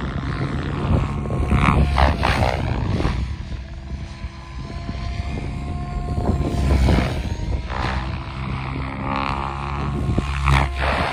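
SAB Goblin 700 electric RC helicopter with a Pyro 800 motor flying 3D aerobatics: rotor blades whooshing over a motor-and-gear whine whose pitch rises and falls with each manoeuvre. It swells loudest about two, seven and ten seconds in as it swoops close.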